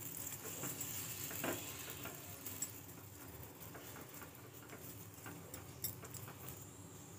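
Steel ladle spreading oil over an aloo paratha on a hot tawa: light irregular ticks and scrapes of the ladle against the bread and pan, over a faint sizzle of oil.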